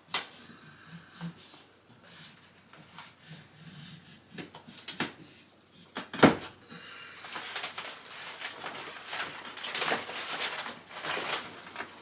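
Wallpaper being handled and smoothed onto a wall: a sharp knock about six seconds in, then a run of repeated rustling, scraping strokes.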